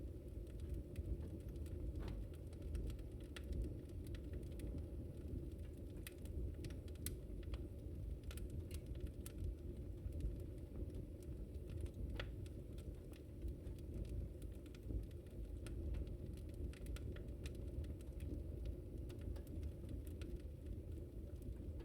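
Wood fire burning: a steady low rush of flames with irregular sharp crackles and pops from the burning wood scattered throughout.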